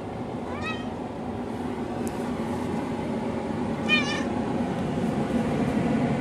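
Tabby cat meowing twice, a short wavering call about half a second in and a louder one about four seconds in, asking for something. A steady low hum runs underneath.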